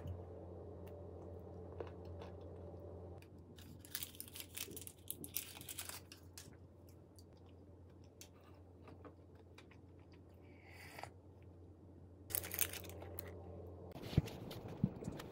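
Close-up chewing and crunching of a nut-stuffed date, with crisp crunching a few seconds in and again near the end, over a steady low hum.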